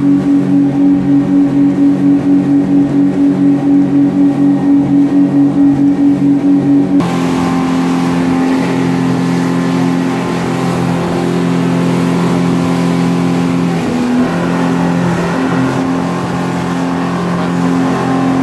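A speedboat's twin Yamaha outboard motors, 500 hp together, running at speed with a steady engine hum that throbs in a regular pulse at first. About seven seconds in the sound changes abruptly to a steadier engine tone under a louder rushing hiss of wake and spray.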